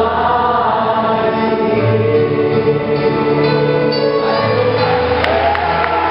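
Congregation singing a Chinese worship song with a live worship band, holding long sustained notes. A few scattered claps start near the end.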